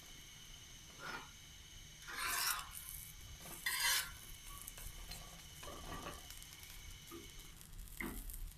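Metal spatula scraping and pressing a naan on a flat iron tawa: about five short scrapes, the loudest two a few seconds in, with a faint sizzle between them.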